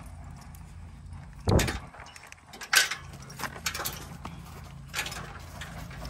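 Ridden horse moving off, its metal tack jingling and clinking with a few hoof thumps: a heavy thump about one and a half seconds in, a sharp clink just over a second later, and lighter clicks after it.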